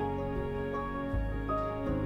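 Instrumental background music: held notes with a slowly moving melody, a new note every half second or so.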